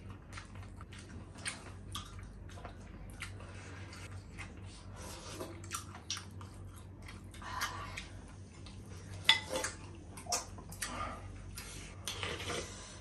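Slurping of miswa noodle soup from spoons, with chewing and scattered clicks of spoons against a glass bowl; a few louder slurps come near the middle and near the end.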